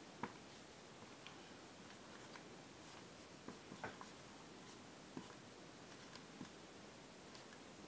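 Faint, scattered taps and short squeaks of a marker tip writing letters on a whiteboard, over near-silent room tone; the loudest tap comes just after the start.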